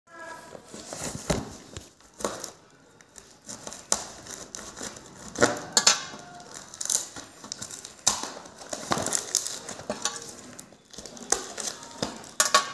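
Paper-wrapped corrugated cardboard parcel being cut and torn open with a small metal tool: irregular crinkling, tearing and scraping, broken by sharp clicks.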